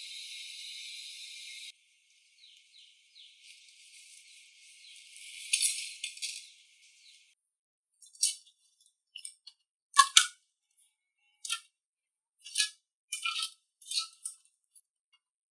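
A steady hiss that cuts off suddenly under two seconds in, then a string of about a dozen sharp light clicks and clinks of small hard parts being handled, a few with a brief metallic ring.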